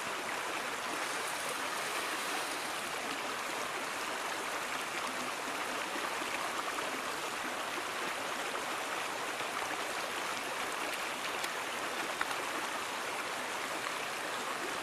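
Steady rushing of flowing water from a stream, an even hiss that does not change.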